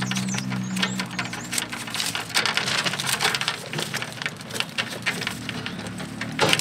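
Insulated electrical wires being handled and pulled through a breaker panel: a dense, irregular run of small clicks, scrapes and rustles as the stripped cable conductors rub and knock against each other and the panel.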